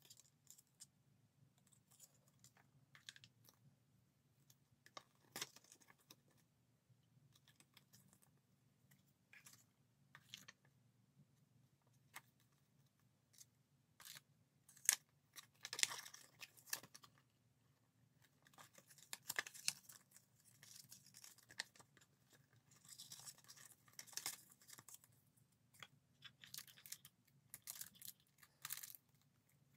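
Paper and packaging of a fountain pen box being handled: soft, scattered rustles, taps and clicks of a folded warranty card, leaflets and a plastic pen tray, busier in the second half, over a faint steady low hum.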